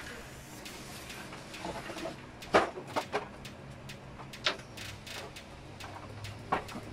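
Plastic clicks and knocks from an Epson L120 inkjet printer's casing as its top cover is worked loose and lifted off: a few sharp, separate clicks, the loudest about two and a half seconds in, with a faint steady hum underneath.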